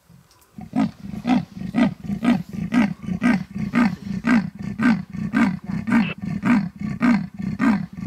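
Leopard calling: its rasping sawing call, a long series of grunts about two a second that starts under a second in. This is the leopard's territorial advertising call.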